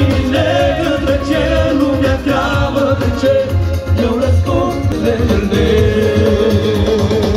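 Amplified church music: men's choir voices singing through microphones over keyboard accompaniment with a steady low beat.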